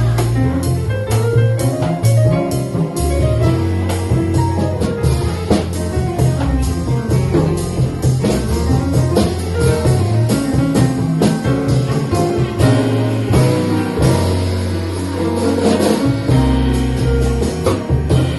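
Live jazz played instrumentally on piano and double bass with drums, with dense cymbal and drum strokes over a moving bass line and piano notes.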